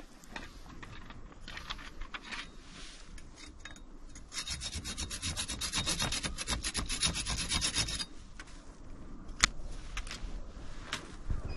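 Folding pruning saw cutting through a Hachiya persimmon branch. A few light strokes start the cut, then a fast, steady run of back-and-forth strokes for about four seconds. A few sharp clicks follow after the sawing stops.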